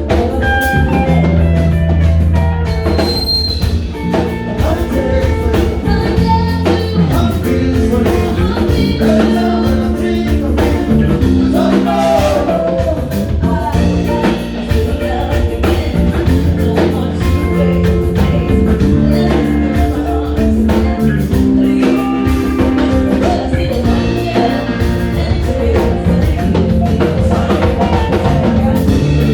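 A rock band playing live at a sound check: drum kit keeping a steady beat under electric guitar and bass, with some singing.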